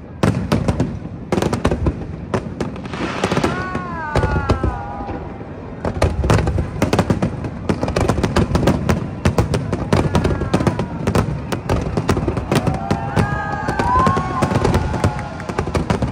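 Aerial fireworks going off in quick succession: a continuous string of bangs and crackling bursts from shells exploding overhead.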